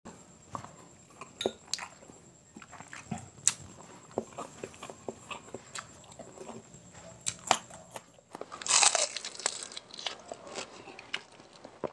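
Close-up eating sounds of quail balut: biting and chewing with scattered sharp clicks. About eight seconds in, a louder rushing sound lasting about a second, then fainter noise.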